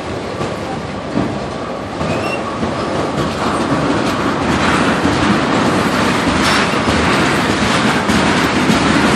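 Freight train cars, autoracks then tank cars, rolling past on the rails, their wheels clacking over the rail joints. The sound steps up in loudness about two seconds in.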